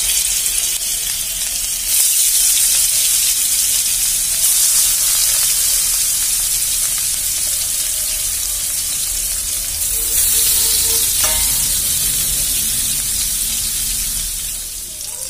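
Rui (rohu) fish steaks sizzling as they fry in hot oil in a karahi. The sizzle surges three times, about 2, 4.5 and 10 seconds in, as further pieces go into the oil.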